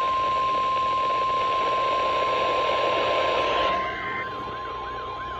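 Weather radio warning alarm tone: one steady, high, piercing tone over radio static. Near the end the static drops away and a siren-like wail, rising and falling about twice a second, starts under the tone.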